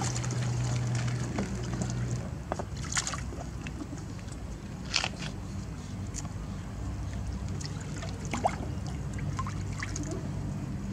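Water sloshing and lapping in an inflatable paddling pool as baby monkeys swim in it, with a few small splashes. A steady low hum runs underneath.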